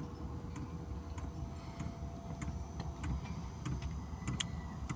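Diesel air heater running on heating oil: the fuel dosing pump ticks steadily, roughly every half second, over a low steady rumble of the burner and blower.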